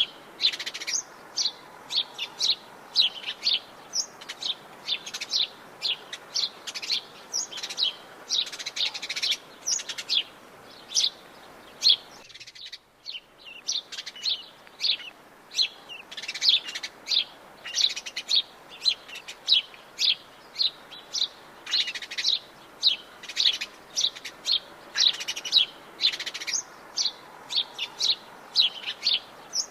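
Many forest birds chirping and singing in a dense, overlapping stream of short, high notes, broken once by a half-second drop-out about twelve seconds in.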